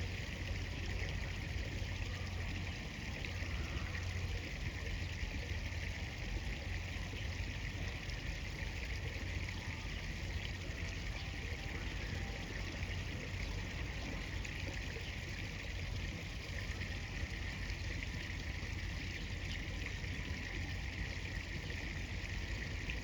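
River water rushing steadily in a strong current.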